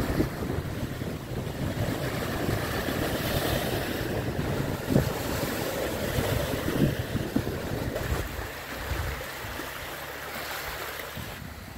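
Sea surf washing in with wind, a steady rushing noise that eases down near the end.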